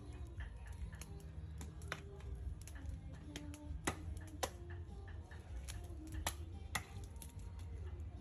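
Wood fire crackling, with sharp irregular pops over a low steady rumble.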